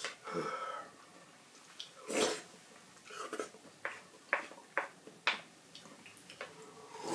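Someone eating a hotpot meal: a couple of short noisy slurps or breaths, then a run of small sharp clicks of chopsticks and tableware.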